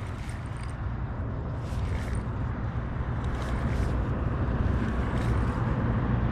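Steady rushing noise of wind on the microphone and water moving along a kayak being towed by a hooked fish, slowly growing louder, with a few faint clicks.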